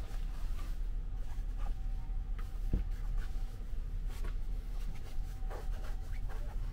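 Cotton yukata rustling softly as a hand unfolds and smooths it on the bed, with a soft thump about three seconds in. Underneath runs a steady low hum in the sleeper-train compartment.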